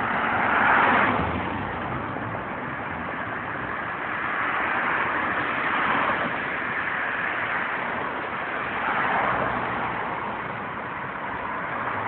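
Road traffic: steady noise of cars and tyres on the road, swelling as vehicles pass about a second in, around six seconds and again around nine seconds.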